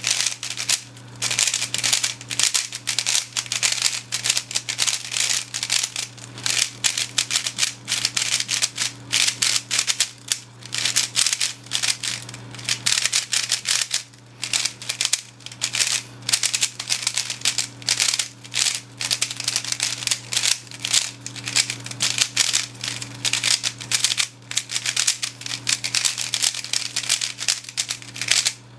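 A new, unlubricated MoYu Aolong V2 3x3 speed cube turned fast by hand: rapid plastic clicking and clacking of the layers, in quick runs of turns with brief pauses, over a steady low hum.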